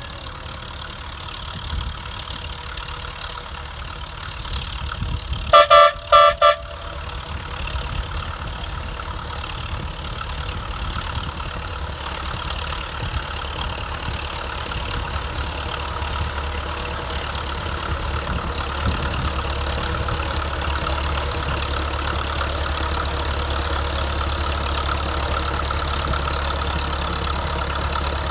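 Small diesel locomotive sounding its air horn in a quick cluster of short toots about five to six seconds in. Its engine runs steadily underneath and grows louder as the train draws near.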